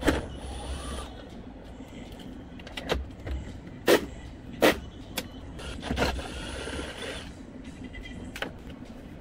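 Hand tools working on the underside of a Tesla Model S rear door: several sharp metallic knocks and clicks, the loudest two about four and four and a half seconds in. There are two stretches of whirring, one near the start and one around six seconds in.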